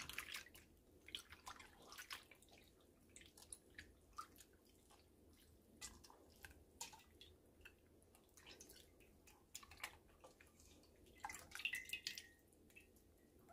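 Faint, scattered drips and small splashes of water from rinsing a freshly gutted squid, with a brief squeak near the end.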